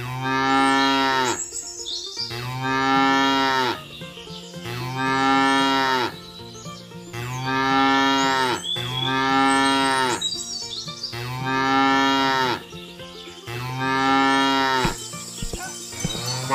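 Recorded cow mooing, the same moo repeated over and over about every two and a half seconds, each moo falling in pitch at its end. There are a few light clicks just before the last moo.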